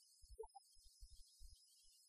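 Near silence, with faint scattered low thuds and a few brief faint tones.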